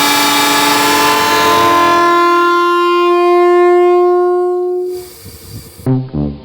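Train air horn blasting one long, loud chord of several tones, steady, then cutting off about five seconds in.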